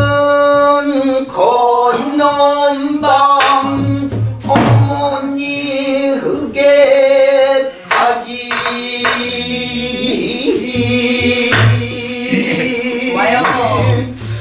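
Pansori sung by a man in long held, wavering notes, accompanied by a buk barrel drum beating the rhythm with low thumps and sharp stick strokes.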